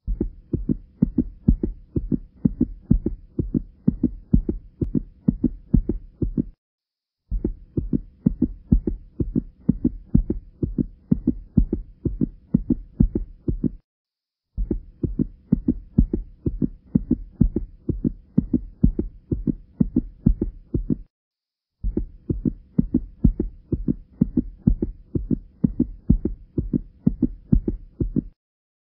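A low, muffled throbbing beat of several pulses a second, with a faint steady tone under it. It plays in four stretches of about seven seconds, each broken off by a brief silence.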